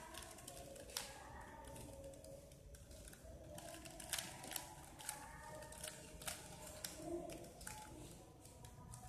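3x3 Rubik's cube being turned by hand: faint plastic clicking of the layers turning, with a few sharper clicks about a second in and between four and seven seconds in.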